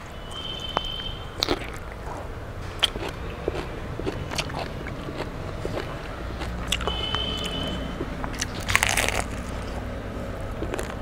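Close-miked crunching and chewing of crispy fried fish eaten by hand, with sharp crunches scattered irregularly through.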